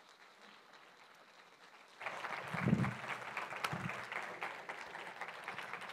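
Quiet room tone, then an audience breaks into applause about two seconds in and keeps clapping, welcoming a speaker onto the stage; a brief low muffled sound comes just after the clapping starts.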